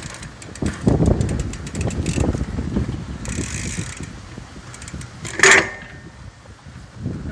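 BMX bike's rear hub ratcheting in rapid clicks as the bike rolls and coasts, over tyre rumble on concrete. About five and a half seconds in comes a single sharp clank with a short ring.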